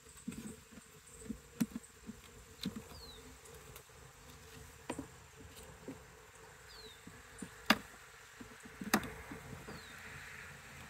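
Honeybees buzzing around an open hive, a steady hum, with several sharp clicks and knocks over it, the loudest a little under eight seconds in.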